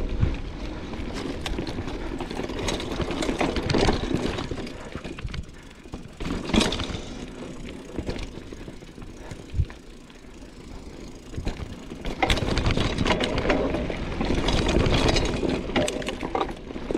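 Mountain bike riding down a dirt trail: tyres rolling over the rough ground with sharp knocks and rattles from the bike over bumps. It is quieter through the middle and busier again from about twelve seconds in.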